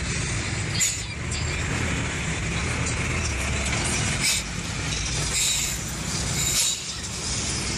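Riding in a moving jeepney: steady low engine rumble and road noise, with the body giving several short metallic rattles.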